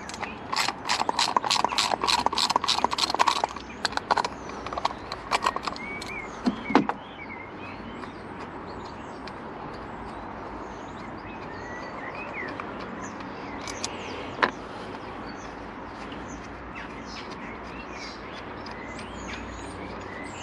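Hand socket ratchet clicking rapidly for about three seconds as bolts on the thermostat housing of a BMW N47 water pump are run out, then a few scattered clicks and a knock. Birds chirp faintly in the background for the rest.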